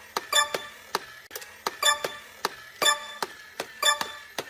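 Clock-like ticking: sharp clicks about three a second in a repeating pattern, each with a brief bright ring.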